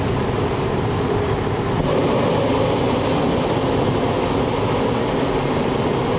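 Hot-air balloon propane burner firing: a steady, loud rushing noise.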